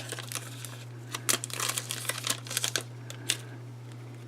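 Plastic wrapper of a baseball card pack crinkling as it is handled and opened: a run of crackles for about three seconds, then it stops. A faint steady hum lies underneath.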